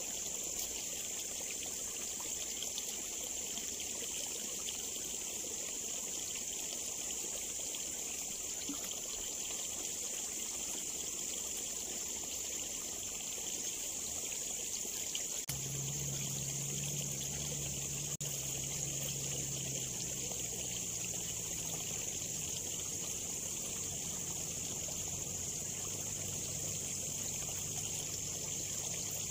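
Steady trickle of water running in a small ditch, under a constant high-pitched insect buzz. About halfway through, a low steady hum joins in.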